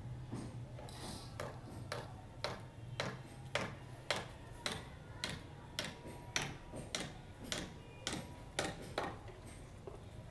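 Footsteps on hard paving, a sharp tap about twice a second, over a low steady hum.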